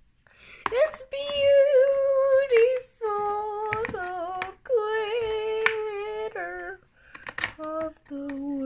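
A high voice singing long, held wordless notes in several phrases, each sliding down in pitch at its end, with a lower note near the end and a few sharp clicks in between.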